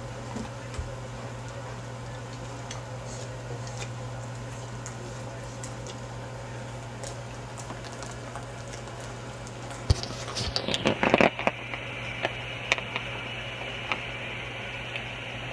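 Dogs chewing and licking at treat-filled toys, heard as faint scattered clicks and wet sounds over a steady low hum. About ten seconds in, a cluster of louder clicks and scrapes comes, and then a steady high whine starts.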